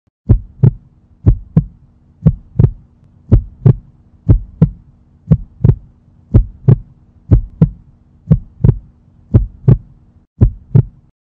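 Heartbeat sound effect: paired lub-dub thumps about once a second over a steady low hum, both stopping shortly before the end.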